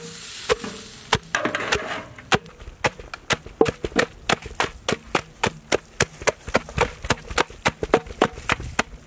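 Wooden masher pounding soft boiled mutton in a large metal pot, mashing the meat to a pulp for haleem. Rapid, regular thuds, settling into about four a second after the first couple of seconds.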